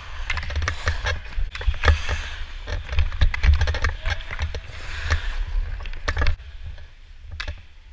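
Hockey skates carving and scraping on the ice while a stick taps and drags the puck in quick, irregular clicks, over a low rumble of wind on the microphone. It quietens after about six seconds.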